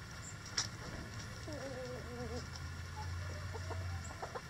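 Backyard chickens clucking, with a hen's wavering, drawn-out call about a second and a half in, over a steady low hum.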